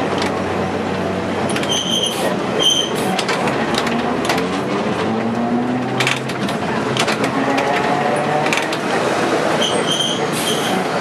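Electric street tram running on its rails, heard from inside the wooden driver's cab: a steady rumble of the wheels on the track, with the motor's whine climbing in pitch through the middle and scattered clicks. Short high rings come in pairs about two seconds in and again near the end.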